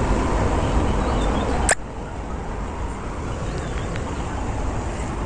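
Steady background noise with a heavy low rumble, broken by a sharp click a little under two seconds in, after which the noise continues quieter.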